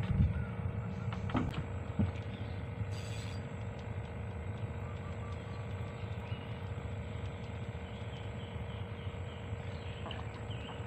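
A steady low motor hum, with a few light knocks in the first two seconds and faint bird chirps near the middle.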